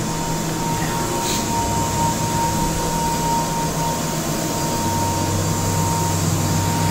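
Steady drone of running shop machinery: a constant rush with a thin, steady whine and a low hum under it.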